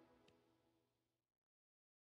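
Near silence: a faint tail of music fades away, then goes completely silent a little past halfway.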